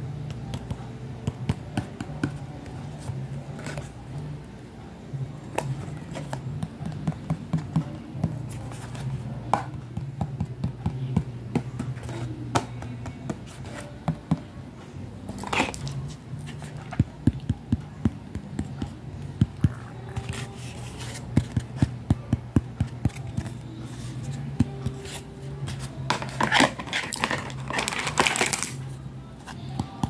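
Hard plastic toy kitchen pieces being handled: a long run of light clicks, taps and clacks as doors, pots and utensils are moved. A rustling, scraping stretch comes near the end.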